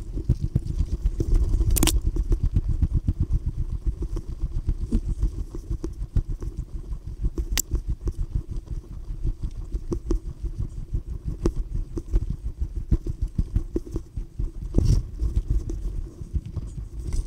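Footsteps trudging uphill through snow, picked up by a head-mounted camera and played back four times fast: a dense, rapid patter of low thumps and crunches, with a few sharp clicks.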